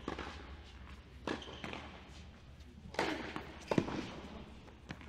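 Tennis ball being bounced on an indoor hard court before a serve: several soft thuds, irregularly spaced, in a large hall.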